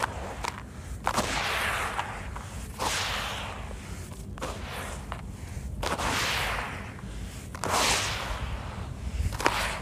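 Handfuls of crumbly sand-and-cement mix scooped up and dropped back into the tub: each scoop starts with a gritty crunch, then a hiss of falling grains. This repeats about every one and a half seconds.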